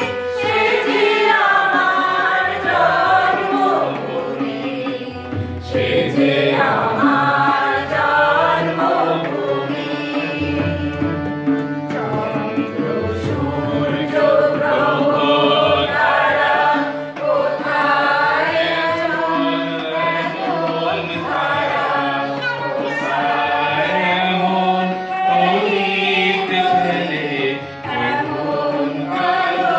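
A group of women and men singing a song together, accompanied by a harmonium and a tabla, with the tabla's low drum strokes recurring under the voices.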